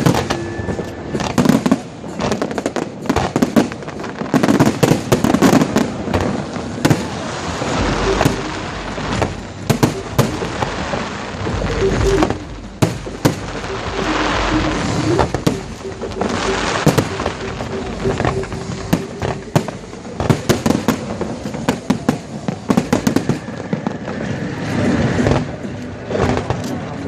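Aerial fireworks display: a dense run of bangs and crackling shell bursts, with deeper booms about eight seconds in and again around twelve to fifteen seconds in.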